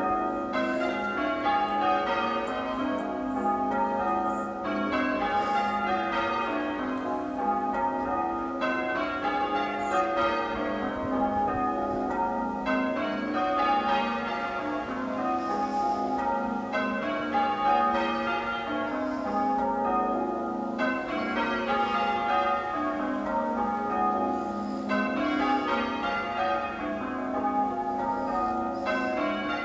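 Church bells being change-rung for a peal: a continuous, evenly paced stream of bell strikes, the rows repeating every few seconds.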